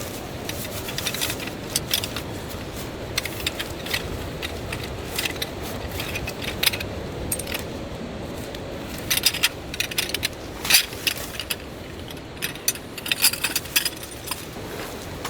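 Irregular metallic clinks and rattles, in scattered clusters of short sharp strikes, over a steady hiss.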